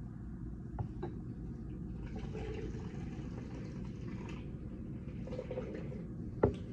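Water poured from a cup into a glass flower vase, a steady pour filling it, with one sharp knock near the end.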